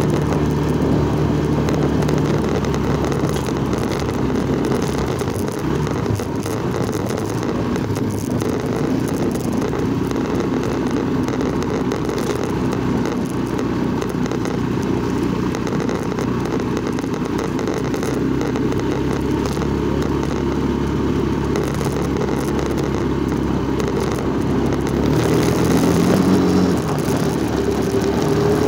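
Small motorcycle engine running steadily while riding over a bumpy dirt track, with wind noise over it; the engine speeds up briefly near the end.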